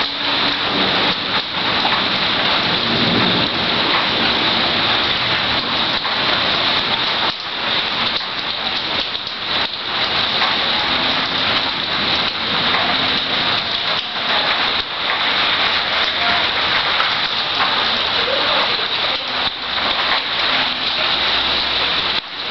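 Rain falling steadily in a thunderstorm, with low thunder rumbling at times.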